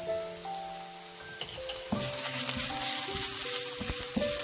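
Chopped onion, green chilli, garlic and curry leaves frying in hot oil in a pan, sizzling steadily. The sizzle grows louder about two seconds in.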